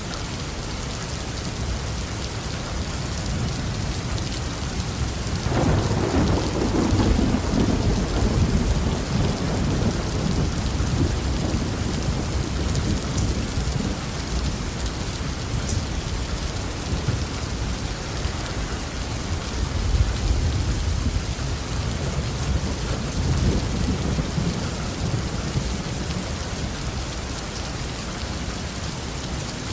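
Heavy rain falling steadily, with a deep roll of thunder rising about five seconds in and fading slowly over several seconds. Two more, lower rumbles come past the twenty-second mark.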